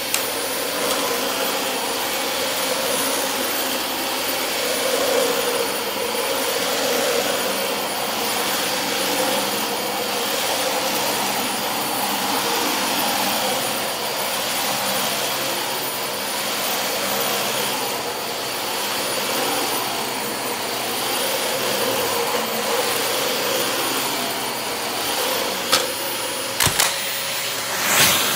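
Dyson DC25 ball upright vacuum cleaner running steadily while pushed over carpet: a loud rushing hiss with a high steady whine. It has freshly replaced filters and a new hose, and runs without a hum. A couple of sharp knocks near the end.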